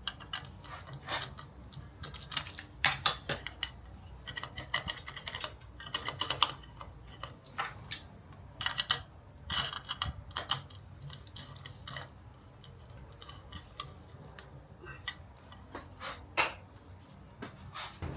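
Irregular light clicks, taps and clinks of small hard parts and tools being handled on a drill press during assembly, with one sharper knock near the end.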